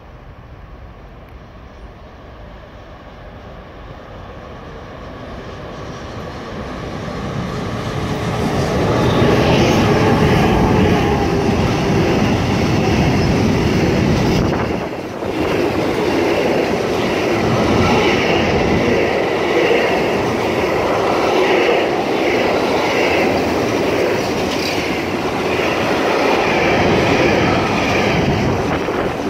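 A freight train carrying lorry trailers on its wagons approaches and rolls past close by, its wheels rumbling and clattering on the rails. It grows steadily louder over the first nine seconds or so, then holds a loud, steady rumble as the wagons pass, with a brief dip about halfway.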